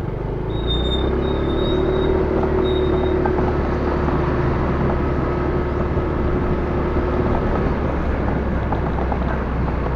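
Vehicle on the move: a steady engine hum over low road rumble.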